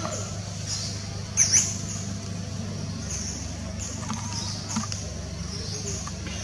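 High-pitched squeaks from a macaque, with two sharp, loud ones about a second and a half in and fainter ones scattered after, over a steady low hum.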